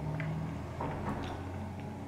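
A low steady hum with a few faint clicks.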